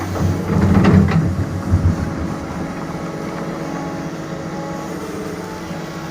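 Doosan DX225LCA excavator's diesel engine running steadily. It swells louder for the first two seconds or so, with a few sharp knocks in that stretch.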